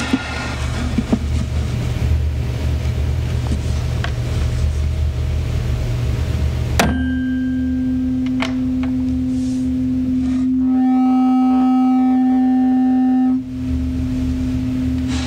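Tuning forks on wooden resonance boxes: after some knocking as the forks are set on their boxes, one is struck with a mallet about seven seconds in and rings with one steady pure tone. The identical second fork resonates in sympathy at the same pitch. A few seconds later the level drops suddenly but the same tone rings on more quietly.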